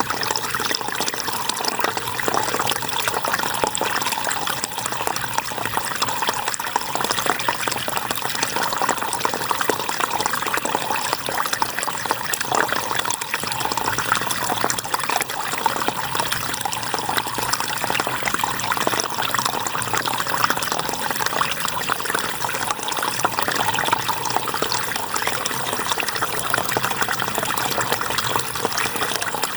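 River water flowing over stones, a steady, even rushing and babbling.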